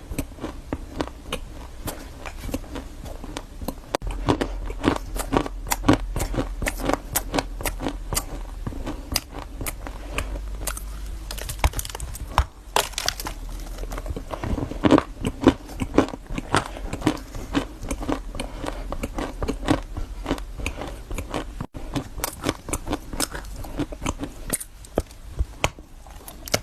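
Close-miked chewing of food, with a steady run of irregular crunches and crackles several times a second.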